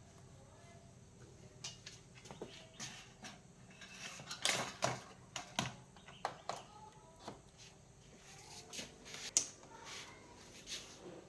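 Irregular light clicks, clinks and knocks of small hard objects being handled, the sharpest about four and a half and nine and a half seconds in.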